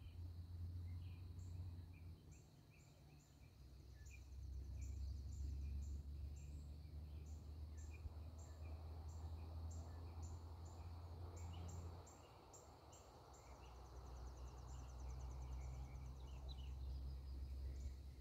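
Songbirds singing: runs of short, high, rapidly repeated notes and scattered lower chips, over a steady low rumble that is the loudest sound and eases off twice.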